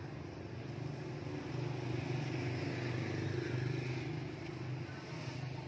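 A motor vehicle's engine passing close by, building up over a couple of seconds and then fading away.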